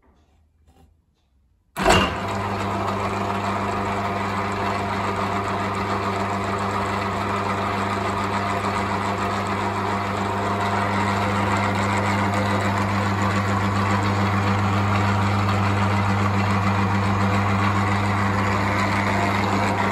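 Optimum TU 3008G lathe switched on about two seconds in, then running steadily at its new lowest speed through an added belt-and-pulley reduction stage: a steady electric motor hum with the whir of the spinning belt drive and change gears.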